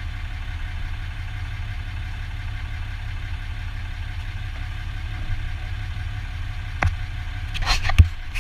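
2015 Dodge Ram 2500 pickup's engine idling steadily, with a sharp click and then a few clicks and a knock near the end.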